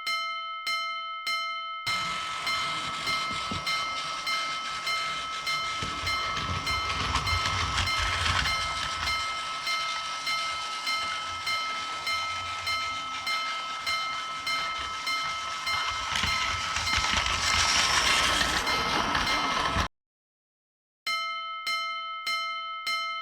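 Japanese level-crossing alarm dinging about two and a half times a second, with a train rushing past through it from about two seconds in. Both cut off suddenly near the end, and after a second's gap the crossing alarm starts dinging again.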